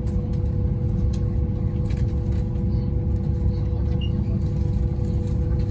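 Steady low rumble of a high-speed train running, heard from inside the carriage, with a few steady hums over it.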